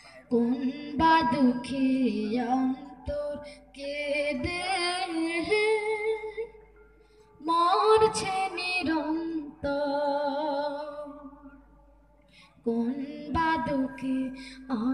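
Unaccompanied voice singing a Bengali Islamic gojol in long, wavering melodic phrases, with two brief pauses between phrases.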